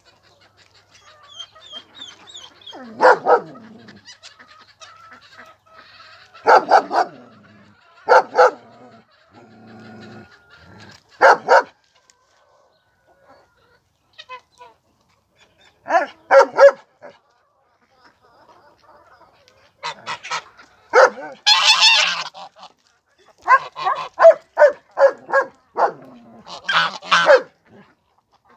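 Domestic fowl calling loudly in separate harsh calls a few seconds apart, then a quicker run of calls near the end.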